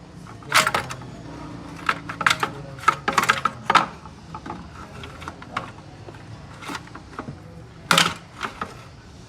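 Metal hand tools and parts clinking and clanking in irregular clusters, the busiest stretch in the middle and one sharp clank near the end, over a steady low hum.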